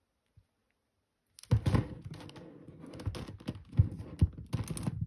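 Gigaminx, a 5x5 dodecahedral twisty puzzle, clicking and clacking as its plastic layers are turned by hand in a quick run of turns. It starts about a second and a half in, after a moment of silence.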